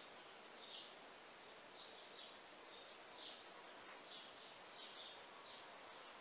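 A bird chirping faintly, short high chirps every half second or so, over a low hiss.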